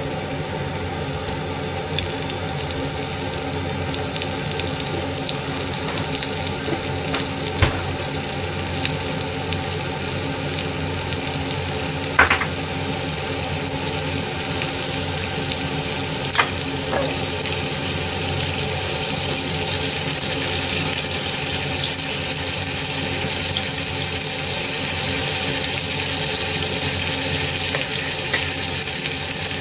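Chicken ham pieces sizzling in a frying pan over a gas burner: a steady frying hiss that grows brighter in the second half. A few sharp pops cut through, at about 8, 12 and 16 seconds.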